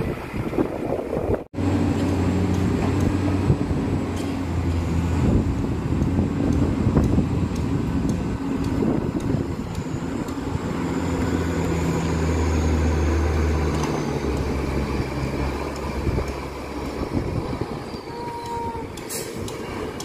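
Heavy diesel engine of a ready-mix concrete mixer truck running steadily, its low note shifting a little in pitch. The sound drops out abruptly for a moment about a second and a half in.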